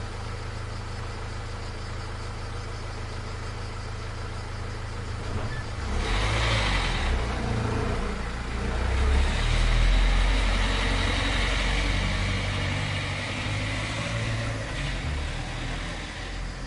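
Car engine idling steadily, then pulling away about six seconds in, growing louder to a peak a few seconds later before slowly easing off as it drives on.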